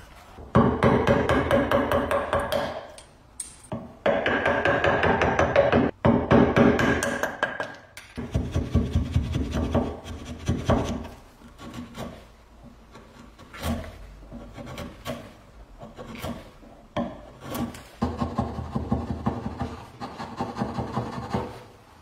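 Hand tools cutting a small wooden block held in a vise. Several long runs of rapid back-and-forth cutting strokes, with a few single sharp knocks of chisel work in the middle.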